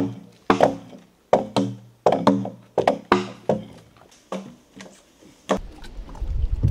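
Steel axe chopping into a log being hewn into a dugout canoe hull: about a dozen sharp strikes at an uneven pace, each ringing briefly with a hollow wooden tone. Near the end the strikes stop and a low rumble of wind on the microphone and water takes over.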